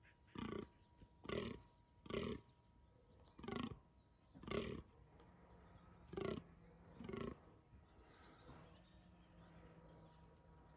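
Fallow deer buck groaning in the rut: seven short, deep, belching grunts about a second apart, which stop a little over seven seconds in.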